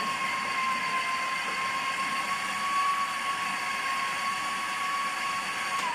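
Electric food processor running steadily, its motor giving a high, even whine as it blends a tahini mixture. Near the end it is switched off and the whine falls as the motor spins down.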